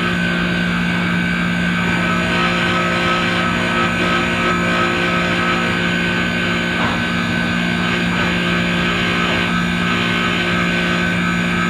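Manitowoc ice machine running steadily, its compressor and fan giving a constant low hum with a steady higher tone above it.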